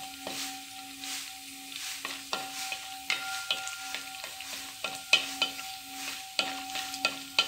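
Cashew nuts sizzling in ghee in a metal uruli, with a spoon scraping and clicking against the pan as they are stirred. A faint steady hum runs underneath.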